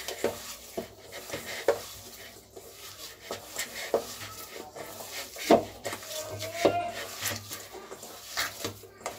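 Hands kneading semolina dough in a stainless steel bowl: irregular knocks and clinks of hands and dough against the steel, loudest a little past halfway, with a brief ring from the bowl.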